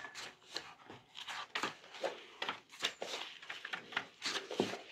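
Pages of a thick paperback textbook being flipped one after another: a quick, irregular run of light papery flicks and rustles.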